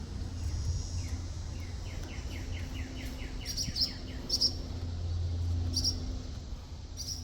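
A songbird calling: a quick run of about a dozen short falling notes, then a few sharp high chips about a second apart, over a steady low rumble.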